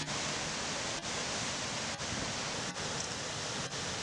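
Floodwater of a river in spate rushing past: a steady, even rush of water noise, broken by brief dips in level about once a second.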